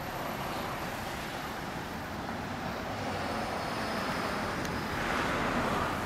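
Yamaha XJR400R's air-cooled inline-four engine running steadily at idle through its exhaust silencer, growing slightly louder near the end.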